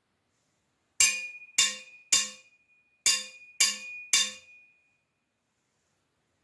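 Metal sai struck six times, in two sets of three about half a second apart, each strike giving a bright metallic clink with a clear high ring that fades.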